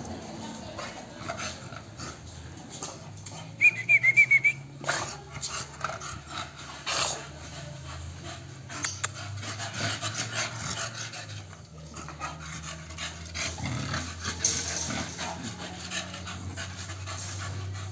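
American bully dogs play-fighting, with panting and scuffling paws. A quick run of about six high-pitched squeaks comes a little under four seconds in.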